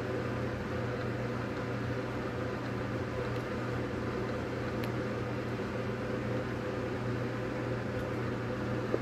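Steady machine hum, even and unchanging, with a few faint ticks.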